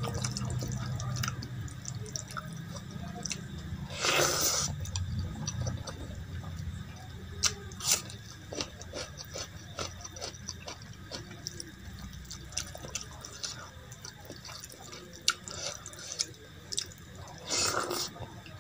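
Fingers mixing rice into runny dal on a steel plate, making wet squelching sounds with many small irregular clicks. Two louder, brief noisy sounds come about four seconds in and near the end.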